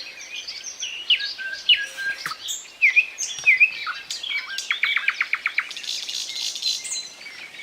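Nightingale singing: a varied run of whistled, sliding phrases, then a quick series of about eight repeated notes near the middle of the song.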